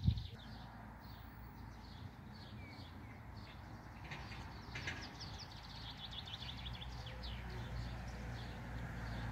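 Small songbirds singing outdoors: many short high chirps and quick trilled runs of notes, over a steady low background rumble.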